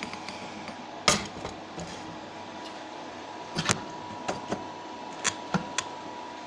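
Metal tools tapping and clinking against a crucible: one sharp knock about a second in, then a scatter of short light clicks over a steady background hiss.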